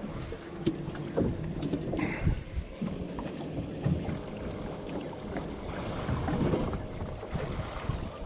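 Irregular small knocks and clicks of bait and gear being handled aboard a small fishing boat, over steady wind and water noise.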